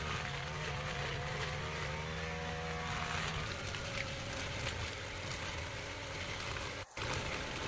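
Backpack brush cutter's small petrol engine running steadily while its cutting head works through grass and weeds, the engine note shifting a little over three seconds in. Briefly cuts out near the end.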